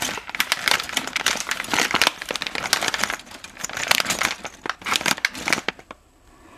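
Clear plastic bag of binder clips crinkling as it is handled and squeezed, a dense run of crackles that stops suddenly near the end.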